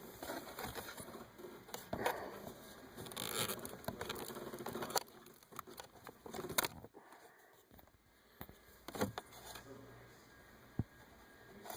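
Fingers working the plastic electrical connector on a steering-column wiper switch, pressing its locking tab: irregular plastic clicks, scrapes and rustling, with a few sharper ticks.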